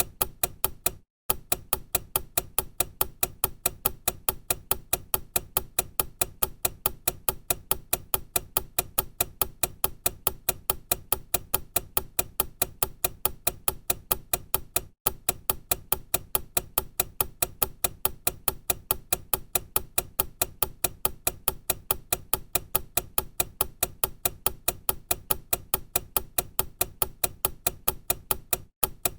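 Time-bomb clock ticking sound effect: sharp, even clicks, several a second. The ticking breaks off for a moment about a second in, again about halfway through, and near the end.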